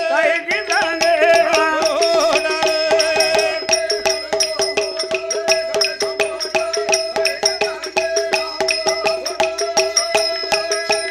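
Villupattu folk ensemble playing an instrumental interlude: quick, even percussion strokes over steady held drone tones, with a bending melody line in the first few seconds.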